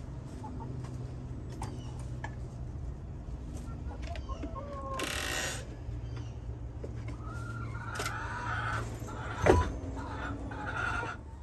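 Backyard chickens clucking and calling, with a drawn-out call about eight seconds in. A single sharp knock stands out about nine and a half seconds in.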